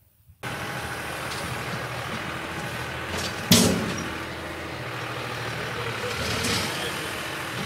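Massey Ferguson farm tractor's engine running steadily, with one loud clunk about three and a half seconds in.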